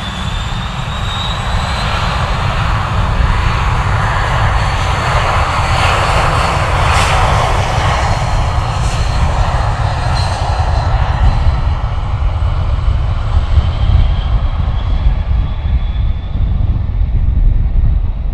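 BAe 146-100's four Lycoming ALF502 turbofan engines at take-off power: a high whine rising in pitch over a heavy rumble as the jet rolls down the runway. The sound is fullest as it passes, and the high whine thins near the end as it lifts off and climbs away.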